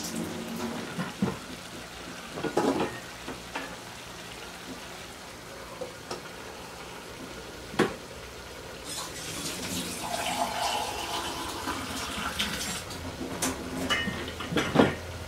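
Water being poured into a wok of simmering chicken pieces, tailing off just after the start, then scattered clanks of cookware. The sharpest comes about eight seconds in, as a glass lid is set on the wok. A few seconds of running water follow, and more clanks come near the end.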